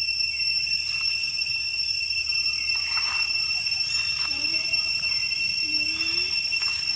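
Steady, high-pitched drone of an insect chorus, a few fixed tones held without a break, with a few faint short calls over it.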